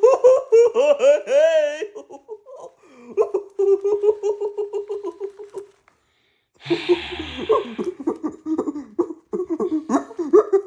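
High-pitched laughter in long runs of rapid, even 'ha-ha' pulses, with a brief hiss about seven seconds in.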